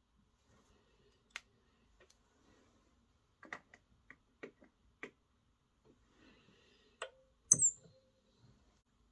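Scattered small clicks and taps as hands handle the cord and tools at a fly-tying vise, with one sharper, louder click near the end.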